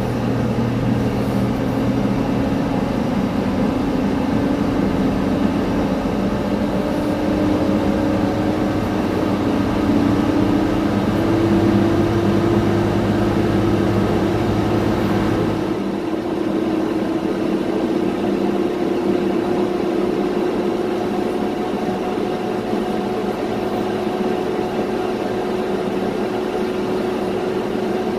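Pushback of a Boeing 787-9: a pushback tug's engine hums low under a steady aircraft whine that slowly rises in pitch. About 16 seconds in, the low engine hum drops away and the whine carries on.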